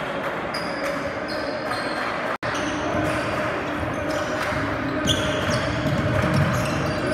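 Basketball game in a gym: a steady crowd hubbub with short, high sneaker squeaks and a ball bouncing on the court. The sound cuts out for an instant about two and a half seconds in.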